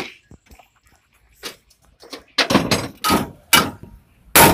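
A hammer striking steel fittings in a lorry cab, knocking loose the steering box mounting. A few light clicks and knocks come first, then from about halfway through four heavy blows about half a second apart, each ringing briefly.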